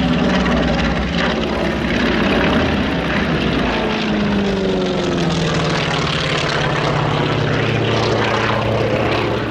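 Radial piston-engined propeller warbird flying past at an airshow. Its engine drone holds loud and steady, and its pitch falls over a few seconds in the middle as the aircraft passes and moves away.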